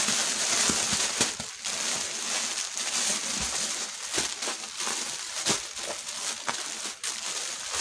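Irregular crinkling and rustling of plastic packaging around folded garments, with scattered small clicks.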